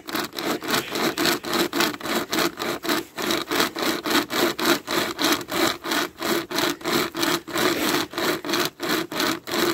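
Pocket chainsaw, a length of toothed saw chain with paracord handles, pulled back and forth through a log. Each stroke gives a rasp of the chain biting the wood, in a fast, even rhythm of about four strokes a second.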